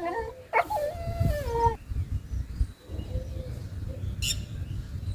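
Dog whining in a drawn-out, falling call about half a second in, then a short high chirp near the end, over a steady low rumble.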